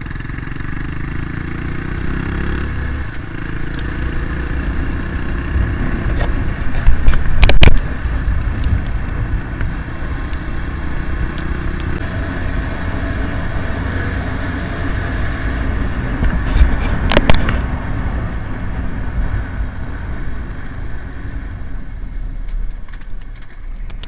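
Honda MSX's small single-cylinder engine running steadily while riding at road speed, its pitch shifting a little as speed changes. Two sharp knocks cut through, about ten seconds apart.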